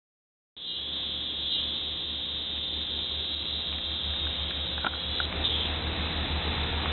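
Yamaha V Star 1100's air-cooled V-twin idling through Cobra slip-on mufflers: a steady, pulsing low rumble that begins about half a second in.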